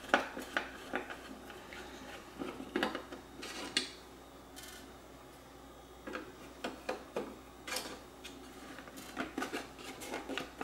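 Irregular clicks, taps and light knocks from a screwdriver and hard plastic housing parts being handled during the disassembly of a robot vacuum's dirt-disposal base, with a brief scrape about halfway through.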